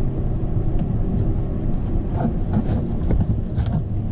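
Steady low mechanical rumble of a motor running in the background, with a few small clicks and rustles of hands working a wire connector at the starter.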